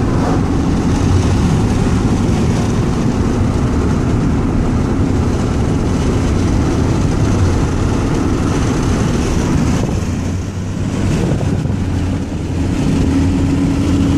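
An engine running steadily, with a dip in level about ten seconds in.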